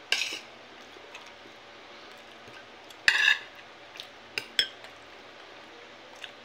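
Spoon and fork scraping and clinking against a plate while scooping up food: a short scrape at the start, a longer, louder scrape about three seconds in, and two light clinks a second or so later.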